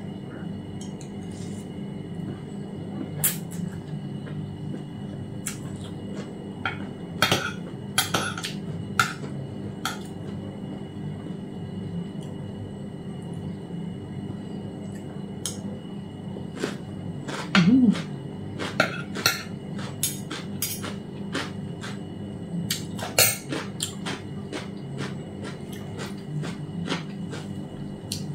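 Metal fork and spoon clinking and scraping against a plate and a metal bowl, in scattered irregular clicks, as someone eats. There is one brief louder low sound a little past halfway.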